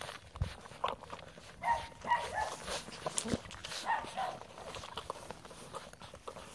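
Puppies nursing from their mother, giving several short squeaks and whimpers, bunched about two seconds in and again about four seconds in, over small wet suckling and smacking clicks.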